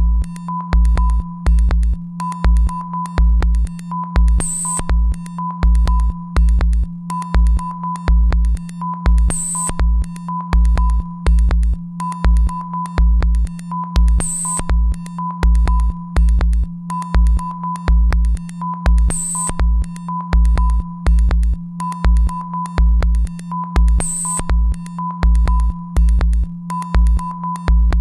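Minimal electronic music on a repeating loop: a steady low drone under a pulsing low beat, short repeated beeps at one pitch, and a brief high hiss about every five seconds.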